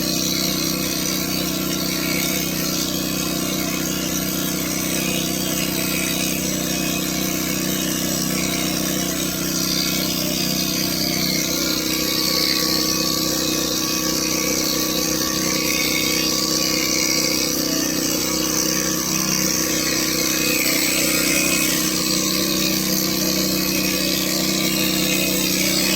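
Electric hair clipper running steadily with a continuous motor hum.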